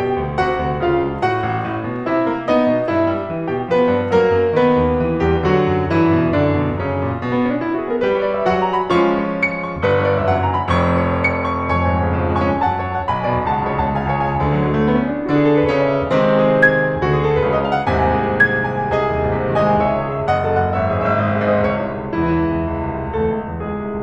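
Background piano music: a steady flow of notes over lower bass notes.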